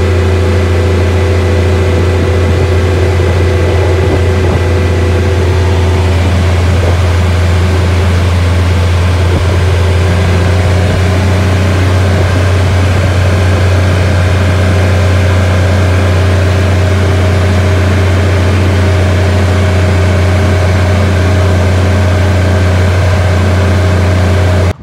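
Steady low engine drone of a side-by-side utility vehicle, heard from inside its cab as it drives along at an even pace.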